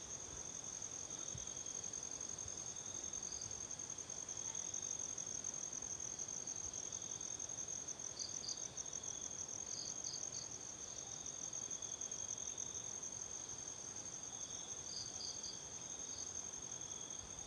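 A chorus of night insects: one gives a steady, high, fast-pulsing trill, another adds short chirps that come and go, and a lower buzz swells and fades.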